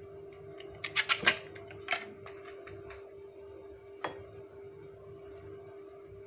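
Metal spoon clinking against a ceramic bowl of flaked fish: a quick run of sharp clicks about a second in, another click about two seconds in and a last one about four seconds in, over a steady faint hum.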